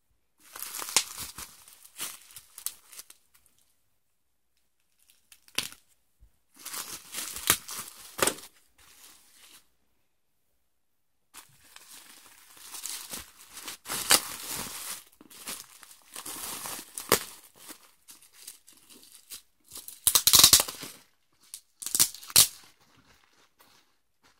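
Packing tape being peeled and torn from white cardboard boards, with crinkling of the wrapping, in several bursts of ripping separated by pauses; the loudest burst comes about twenty seconds in.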